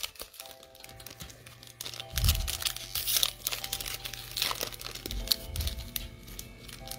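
Foil wrapper of a Panini Prizm basketball trading-card pack crinkling and tearing as it is pulled open by hand, with a few dull bumps of handling, over faint background music.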